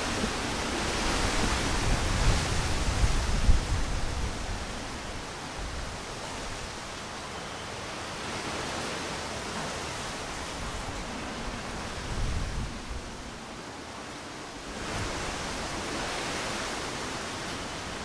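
Strong wind gusting through the leafy crown of a broadleaf tree, the leaves rushing, with a low rumble in the strongest gusts. A big gust in the first few seconds eases off, and the wind picks up again a few seconds before the end.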